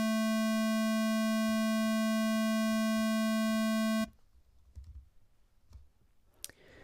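A 220 Hz square wave from a Max software synthesiser patch, the A an octave below concert A 440, held as a steady pitched tone that cuts off suddenly about four seconds in. After it only a few faint clicks are heard.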